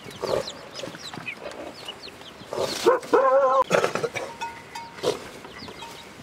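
Domestic chickens: a run of short, high, falling peeps, with one louder wavering call about three seconds in.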